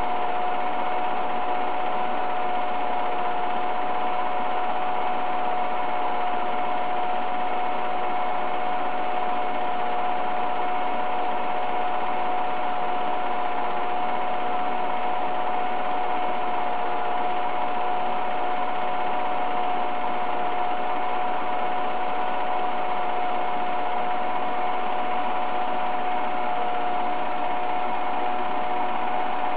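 8mm film projector running: a steady mechanical whir with one constant whine.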